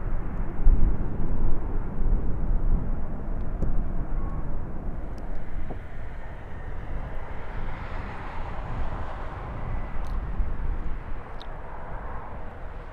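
Airliner engines rumbling as the aircraft passes, the low rumble loudest in the first couple of seconds and slowly easing, with a hissing whine swelling and fading later on.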